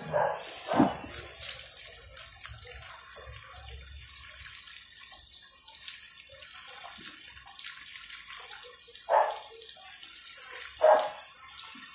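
Water from a garden hose with a brass spray nozzle, hissing steadily as it sprays onto concrete. A few short, loud, sharp sounds stand out: two about a second in and two more near the end.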